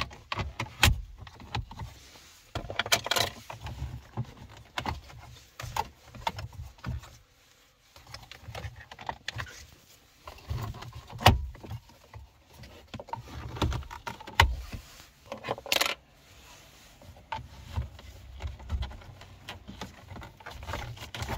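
Scattered clicks, taps and light rattles of hand tools and dashboard trim being worked on to unscrew and pry the trim loose. There are two louder scraping bursts, about three seconds in and again near the end.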